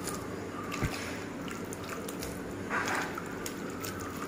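Water dripping and trickling out of soaked raw mango slices in a plastic colander as they are shaken and turned by hand to drain. There is a soft thump about a second in and a brief wet rustle of the slices near three seconds.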